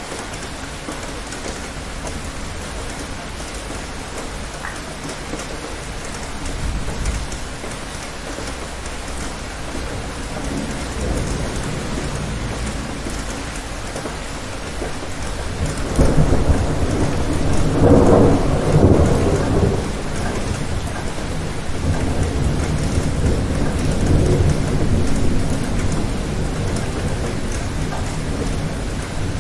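Steady rain falling, with a low rumble of thunder about seven seconds in. A louder, longer roll of thunder starts a little past halfway, peaks a few seconds later and keeps rumbling to the end.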